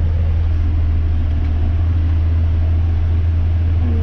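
John Deere 6175M tractor engine running steadily under load while pulling a maize planter, heard as a constant low drone inside the cab.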